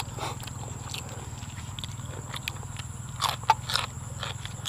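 Close-up eating sounds of a person chewing food by hand: faint mouth clicks, then a few short crunches a little past three seconds in, over a steady low hum.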